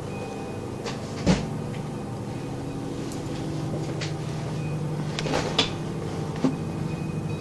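A steady low drone made of several held tones that sounds like a distant airplane but goes on without stopping. A few sharp knocks cut across it, the loudest about a second in, others near five and a half and six and a half seconds.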